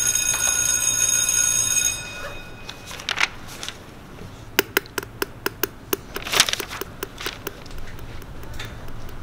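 An electric school bell rings steadily for about two seconds, then stops. After it comes a run of sharp, irregular taps and clicks on a hard floor, the loudest a little past halfway.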